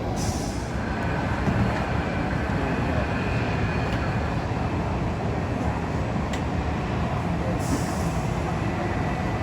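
Steady running rumble of an airport people-mover train heard from inside the car, with a brief hiss near the start and again near the end.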